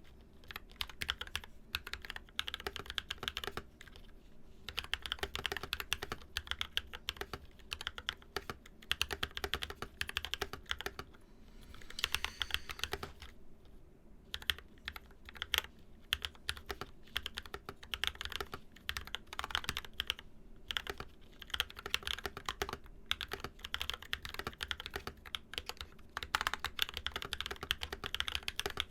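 Fast typing on a NovelKeys NK65 mechanical keyboard, silicone-dampened, with Zykos tactile frankenswitches (Glorious Panda top and stem, Zealio v2 bottom housing, 67 g springs, lubed with Krytox 205g0) under Infinikey Musubi keycaps. The keystrokes come in a dense run broken by a few short pauses.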